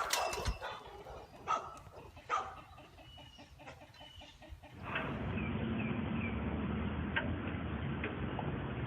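Chickens clucking: a run of short, evenly spaced clucks, then, after a cut about five seconds in, a steady noisy background with short high chirps.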